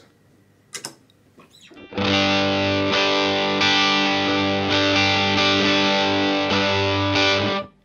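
Electric guitar (a Gretsch Broadcaster hollow-body) played through an EarthQuaker Devices Westwood overdrive pedal with all four controls at noon, into a clean Egnater Tweaker amp: strummed chords with a mild, amp-like overdrive, ringing for about five seconds and then muted abruptly. A soft click comes about a second in, before the playing starts.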